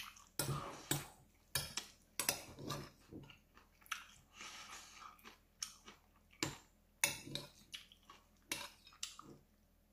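Metal spoon clinking and scraping against a ceramic bowl as it scoops up rice, with close-up chewing in between. The clicks come unevenly, a dozen or so, with a softer stretch of scraping or chewing about halfway through.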